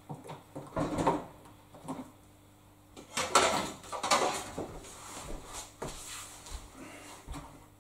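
Rubber washing-machine door seal being worked by hand onto the lip of the drum opening: irregular rubbing and flapping of the rubber with light knocks against the machine. The louder bursts come about a second in and again in the middle.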